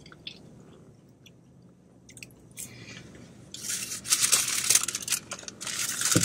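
Quiet chewing with faint clicks, then, about three and a half seconds in, a fast-food sandwich wrapper is crinkled and unwrapped with a loud, continuous crackle.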